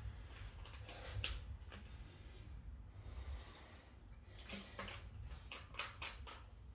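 A person breathing hard between burpees, with short puffs of breath and shuffling steps over a low steady rumble.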